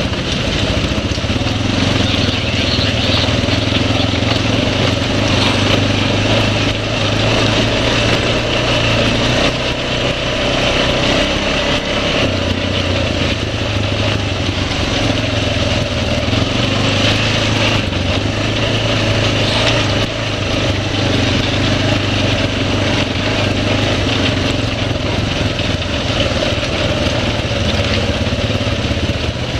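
ATV engine running steadily at an even speed, its pitch holding nearly constant.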